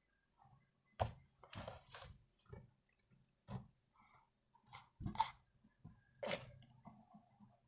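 Scattered handling noises: short rustles, soft clicks and scrapes, a second or more apart, the loudest about a second in and again past the middle.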